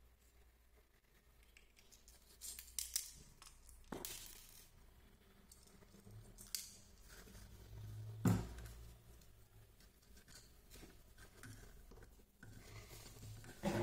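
Small plastic RC car chassis and loose parts handled and set down on a bench: scattered clicks, taps and knocks, the loudest about eight seconds in.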